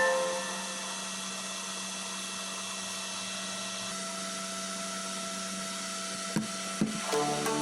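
Small 12 V heat-sink cooling fans of a homemade Peltier mini fridge running with a steady whir and hum. Two short clicks near the end.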